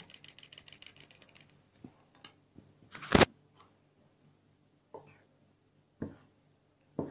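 A baking powder sachet being shaken out over a bowl of flour, a quick run of soft ticks, then a metal spoon stirring the flour and knocking against the bowl: one sharp clink about three seconds in and a few lighter knocks after.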